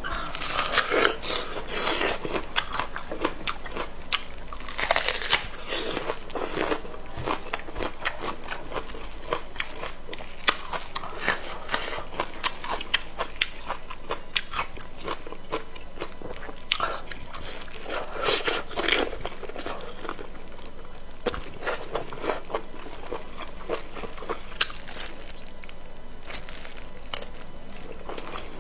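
Close-miked eating sounds: a person biting and chewing food, with irregular wet smacking clicks and bursts of crunching that come in clusters.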